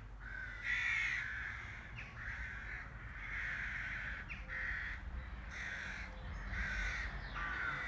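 A bird calling over and over, about one call a second, over a steady low background rumble.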